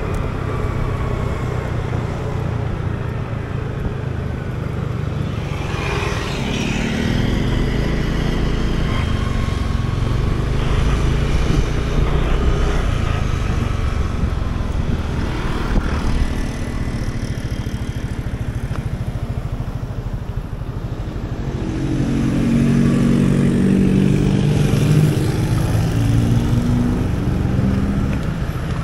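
Small Yamaha motor scooter engine running while it is ridden, with wind noise on the microphone and other traffic passing. The engine note rises about six seconds in and again about two-thirds of the way through as it speeds up.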